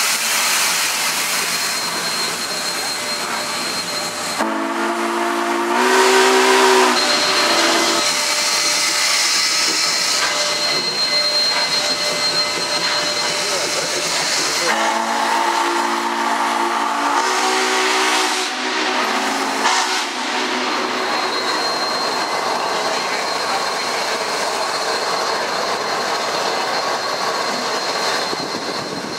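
Union Pacific 844 steam locomotive moving off with steam hissing throughout. Its multi-note chime whistle sounds twice, about ten seconds apart, each time as a long blast with a brief break.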